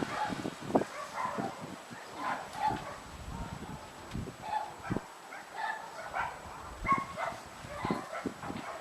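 Short, repeated animal calls scattered over several seconds, with gusts of wind buffeting the microphone.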